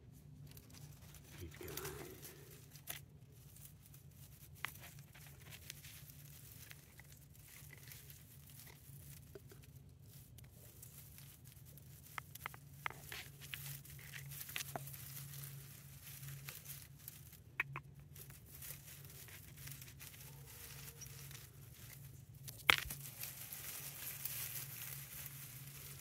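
Close handling noise: soft crackling and rustling of the dry grass nest and the phone, with scattered small clicks. A sharp click comes about three quarters of the way through, and the rustling then grows louder as fingers work into the nest. A low steady hum runs underneath.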